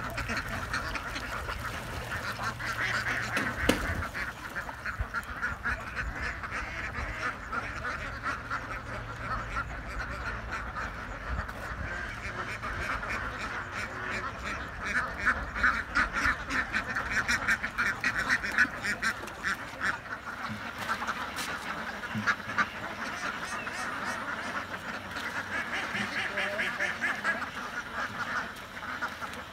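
A large flock of domestic ducks quacking, many calls overlapping into a continuous chorus.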